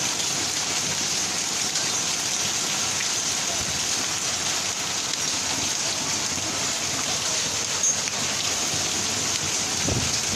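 Heavy hail mixed with rain falling steadily, hailstones hitting the ground. A brief sharp sound about eight seconds in.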